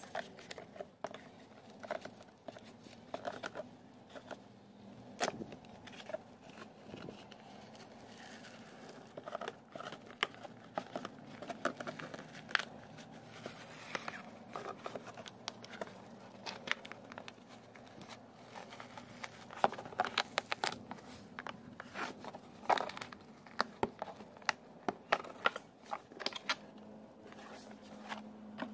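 A cured fiberglass half-fairing being pried and peeled off its cardboard mold by hand, with irregular crackles, snaps and tearing as the resin parts from the mold, coming thicker and louder in the second half.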